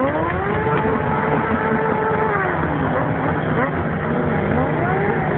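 Motorcycle engine revved hard during a tyre-smoke burnout: the revs climb at the start, are held high for about two seconds, then drop, followed by a few shorter blips of the throttle.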